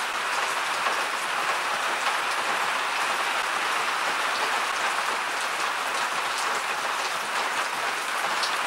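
Heavy rain pouring down, a steady, loud hiss of drops hitting surfaces with faint individual drop ticks.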